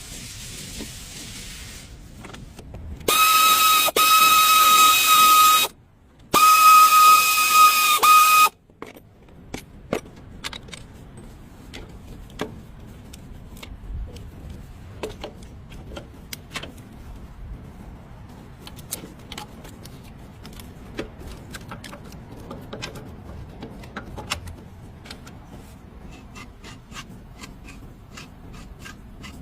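Two long blasts of a horn, one steady high note with overtones, the first about two and a half seconds and the second about two. A brief hiss comes before them, and scattered light clicks and taps follow them.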